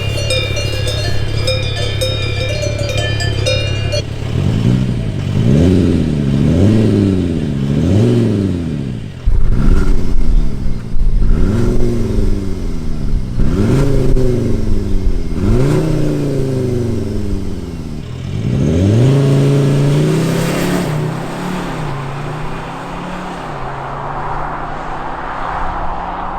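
About four seconds of steady ringing tones, then a Škoda Kodiaq RS's 2.0-litre four-cylinder engine revved up and let fall back again and again, roughly one rev every couple of seconds, ending in a longer, steadier climb in revs.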